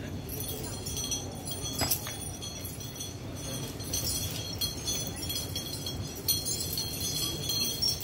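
An elephant's iron chain clinking now and then on the concrete floor as the elephant shifts while feeding, over a steady background hum.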